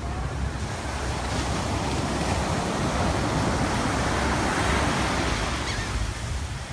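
Ocean surf breaking and washing up the beach, a steady rushing wash that swells and fades again about two-thirds of the way through.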